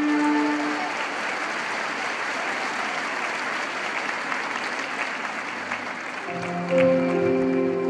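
Large audience applauding as held musical notes fade out at the start. About six seconds in, music with sustained tones and a low bass note starts up over the tail of the applause.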